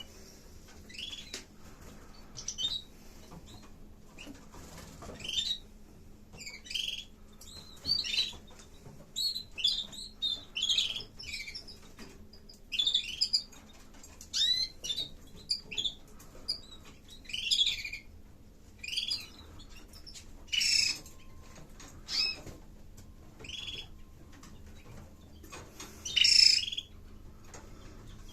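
Canaries giving short, high chirping calls at irregular intervals, often one to two a second, over a faint steady low hum.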